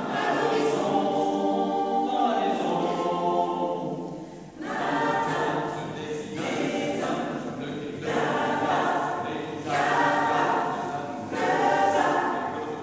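Small mixed choir of women's and men's voices singing a cappella, in phrases with a short break for breath about four and a half seconds in.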